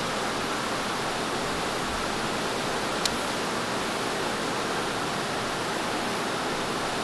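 Steady even hiss, with one sharp click about three seconds in as a cleaver is set down on a plastic cutting board.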